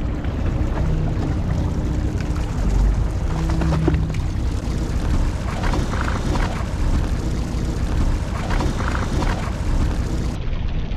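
Fishing boat's engine idling with a steady low hum, under wind and sea noise.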